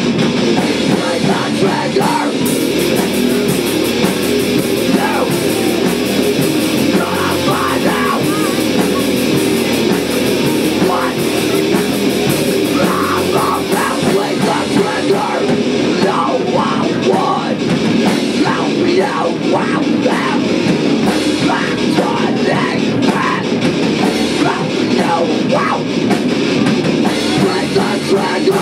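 A live punk/doom band playing loud: distorted electric guitars over a drum kit, a dense wall of sound with no breaks.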